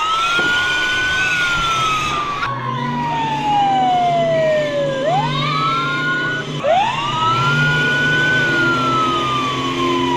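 Wailing siren, each cycle rising quickly and then falling slowly over a few seconds, repeating, with a low steady hum underneath.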